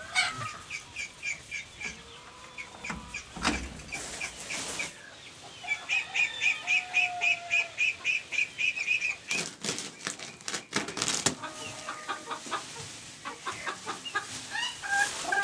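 Backyard chickens clucking, with two runs of rapid, evenly spaced high chirps from a bird, about five a second, one near the start and a longer one in the middle, and a few sharp knocks.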